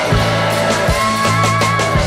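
Rock music with electric guitar and drums.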